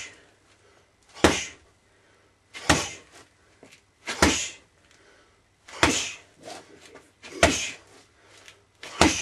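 Punches landing on a leather focus mitt: six sharp smacks about one and a half seconds apart, each followed by a short echo of a small room.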